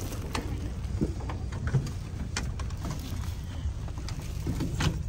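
Steady low rumble of a running vehicle, with scattered clicks and rattles and faint voices in the background.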